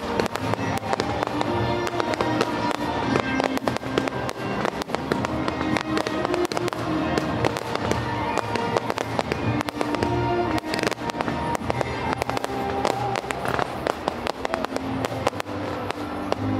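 Fireworks display: rapid, dense pops and crackles of bursting shells, with music playing underneath.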